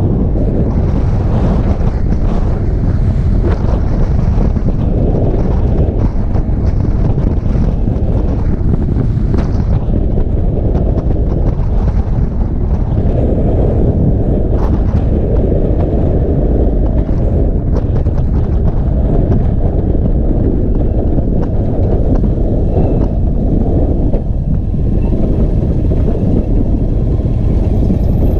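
Steady wind buffeting the microphone on a moving Indian Chief Bobber motorcycle, with the bike's engine and road noise underneath.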